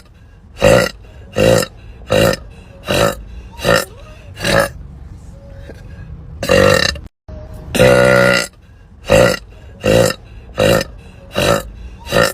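A woman burping over and over: about six short burps in quick succession, two longer drawn-out burps in the middle, then another quick run of short burps.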